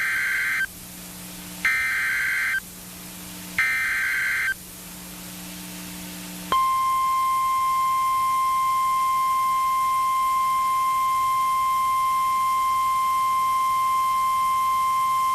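NOAA Weather Radio Emergency Alert System alert: three short bursts of SAME digital header tones, a warbling electronic screech about a second each, followed about six and a half seconds in by the steady 1050 Hz warning alarm tone, held for about nine seconds. The sequence announces a severe thunderstorm warning broadcast.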